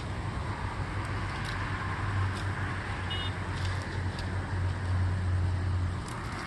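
A low, steady motor hum over a hiss of outdoor noise, dropping away about six seconds in, with a short high chirp around three seconds in.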